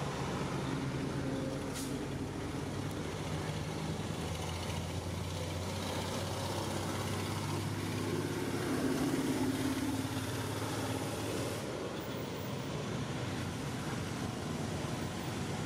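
A motor vehicle's engine running steadily with a low hum, swelling louder about eight to eleven seconds in as it passes, then easing off.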